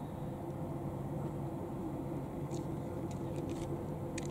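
Single-engine Piper PA-28-161 light aircraft running along the runway on a touch-and-go: a steady drone from its four-cylinder piston engine and propeller.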